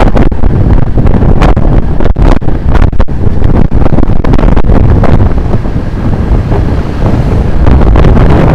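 Loud wind buffeting on the microphone of a camera riding on a road bike during a fast downhill descent: a dense, low rumbling rush with irregular brief dropouts, easing slightly about six to seven seconds in.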